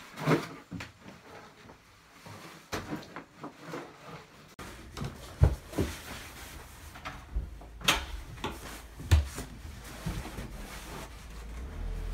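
Scattered clunks and knocks, a few of them loud, as a person carries a cardboard box and opens a wooden front door. A low steady rumble sets in near the end.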